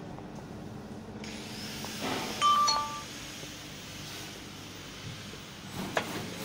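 Fiber laser cutting machine running with a steady hum, joined about a second in by a hiss. About two and a half seconds in, a short two-note electronic beep sounds, the higher note first and the lower one after. A sharp click comes near the end.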